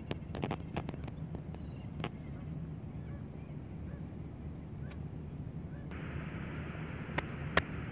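Faint, brief calls of distant birds over a steady low rumble of wind on the microphone, with a few sharp clicks. About six seconds in, a steady hiss sets in abruptly.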